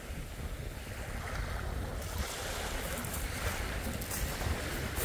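Small waves breaking and washing up a shingle beach, with wind rumbling on the microphone.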